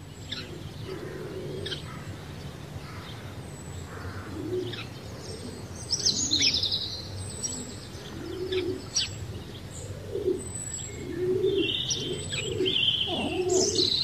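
Birds calling: low, repeated cooing notes that come more often over the last few seconds, with higher, brief chirps.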